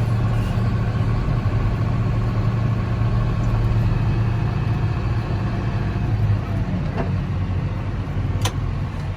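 John Deere diesel engine running steadily with a low, even hum, and a sharp click about eight and a half seconds in.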